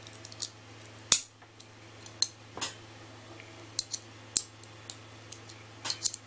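Scattered sharp metallic clicks and taps, a dozen or so, the loudest about a second in: a fidget spinner's metal cap being pressed against its small press-fit bearing to push the bearing out.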